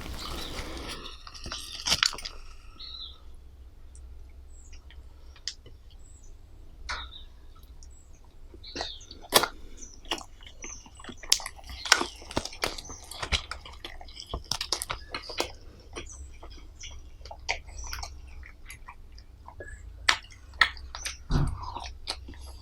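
Close-miked eating sounds: chewing, with many sharp wet mouth clicks and a crunchy stretch about the first second. Near the end a short low sound slides down in pitch.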